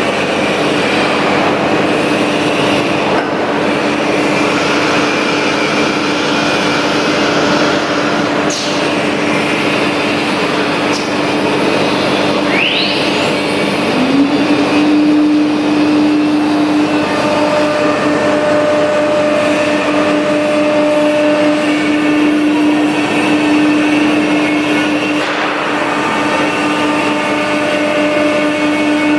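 CNC nesting router cutting MDF: the spindle holds a steady whine over a constant rush of cutting noise. About halfway through, the spindle's pitch briefly drops and climbs back up.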